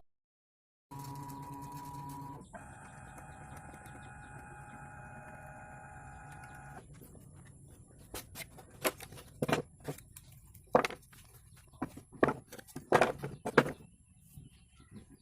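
Faint steady mechanical whine of several tones that stops about seven seconds in, followed by a run of irregular sharp clicks and taps.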